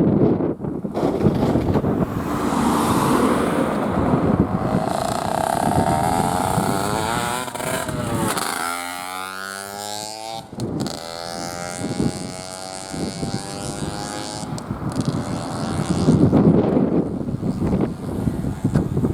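A motor vehicle passes close by, its sound sweeping past about halfway through. Wind buffets the microphone at the start and again near the end.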